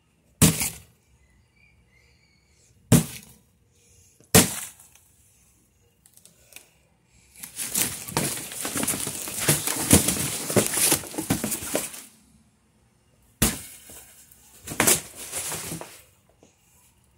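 Sharp cracks and knocks, three in the first few seconds, then about four seconds of dense crunching and breaking noise, then a few more cracks near the end.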